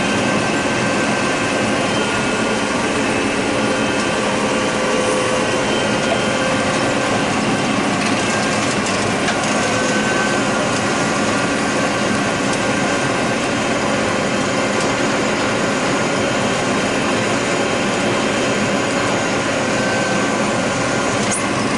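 John Deere 9600 combine running steadily while harvesting corn: a constant, loud mechanical drone of engine and threshing machinery, with a few steady tones in it.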